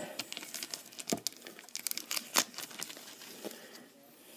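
Crinkling and crackling of trading-card packaging handled by hand. There are sharper snaps about a second in and again about two and a half seconds in, and it thins out near the end.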